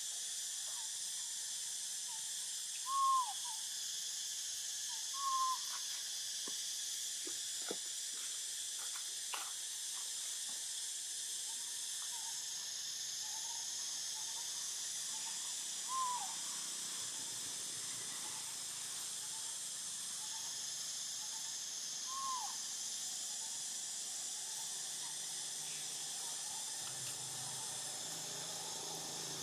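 A steady high insect chorus, with short hoot-like animal calls that rise and fall, repeated every few seconds. Four of the calls stand out louder than the rest, the first the loudest.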